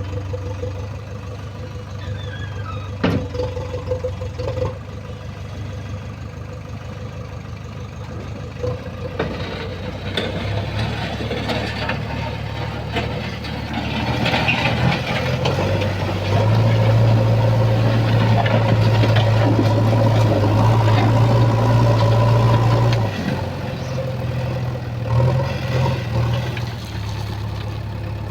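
Engine of a heavy machine running steadily, then working harder and louder for several seconds about two-thirds of the way through before settling back.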